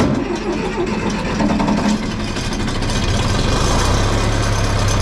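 John Deere 3010 tractor's four-cylinder engine starting from cold: it catches right away, runs unevenly for about two seconds, then settles into a steady idle to warm up.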